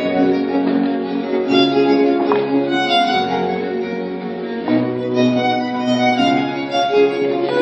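Dance music on bowed strings: a violin playing a melody over a low sustained bass line.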